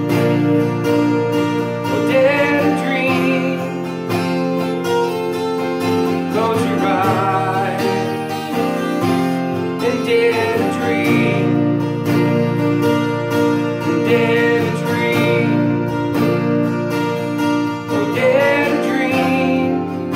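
Acoustic guitar being strummed, playing chords steadily as song accompaniment.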